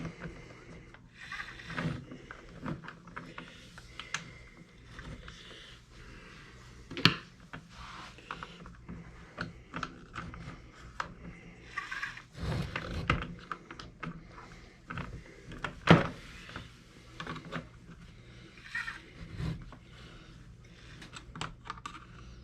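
Small clicks, taps and knocks of hard plastic and metal RC parts being handled as a steel drive axle, hub and pins are fitted to an RC truck's suspension, with two sharper knocks about a third of the way in and again past the middle.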